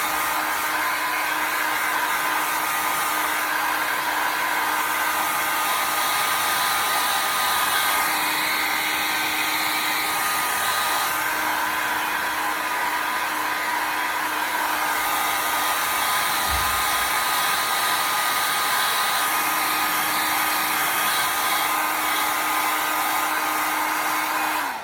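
Handheld hair dryer blowing steadily, with a constant whine and a low hum that drops in and out, cut off suddenly at the end.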